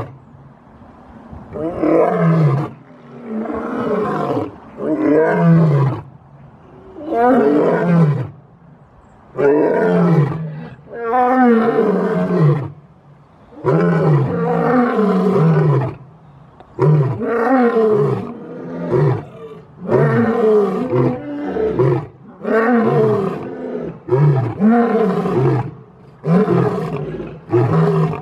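Lion roaring: a long series of calls, each about a second long and falling in pitch, repeated roughly every two seconds.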